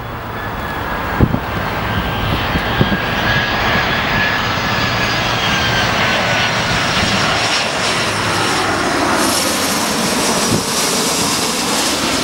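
Airbus A320 jet airliner on final approach passing low overhead: jet engine noise that builds up over the first couple of seconds and then holds loud and steady, with a high engine whine that slides slowly down in pitch as the aircraft goes by. Two brief knocks sound in the first few seconds.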